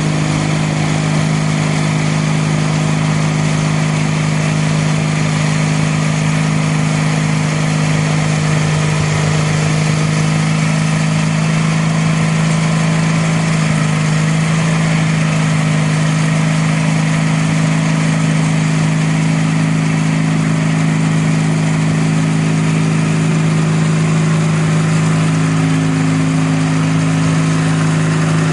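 The Sears Roper GT18 garden tractor's 18 hp Briggs & Stratton horizontal twin runs steadily under load, driving the shaft-driven front snowblower as it throws snow. The engine note shifts slightly in pitch a couple of times.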